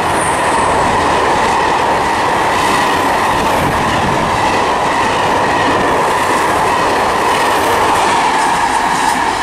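Freight train hauled by a GB Railfreight Class 66 diesel locomotive passing through at speed: a loud, continuous rumble of wagons on the rails with a steady high ringing whine over it.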